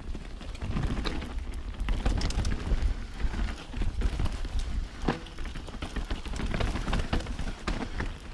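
Mountain bike descending fast on wet, muddy singletrack: tyres on slick dirt under a constant low rumble, with frequent clicks and knocks from the bike rattling over roots and rocks.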